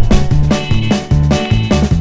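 Upbeat background music with a steady drum beat and a bouncing bass line.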